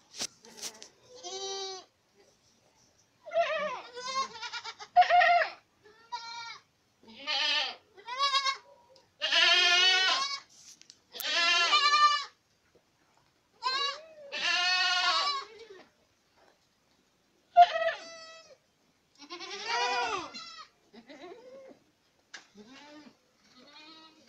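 Boer goats bleating again and again, one call after another and sometimes overlapping, each call about half a second to a second long with a wavering pitch, the voices pitched higher and lower from different animals.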